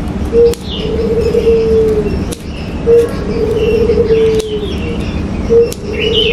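A bird calling steadily: a short note followed by a long trilled note that sinks slightly at its end, repeated three times about every two and a half seconds. Fainter high chirps from other birds sound between the calls.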